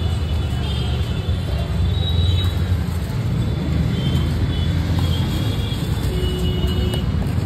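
Steady low rumble of road traffic, with faint high tones drifting over it.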